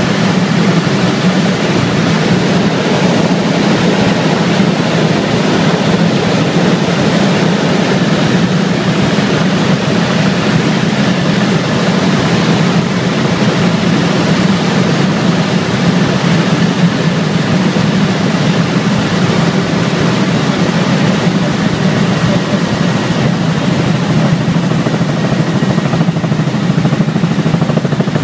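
Bell LongRanger helicopter in cruising flight, heard from inside the cabin: a loud, steady mix of turbine engine and rotor noise, with a strong low drone under a broad rushing hiss.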